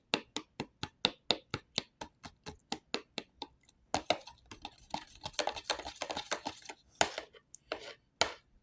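Fork beating and stirring eggs in a bowl, clicking against the bowl about four to five times a second at first, then slower and more irregular, with a few louder knocks near the end.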